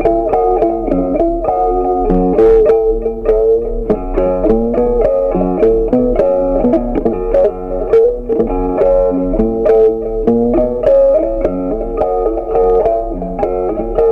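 Background music: a plucked guitar playing a melody over a steady accompaniment.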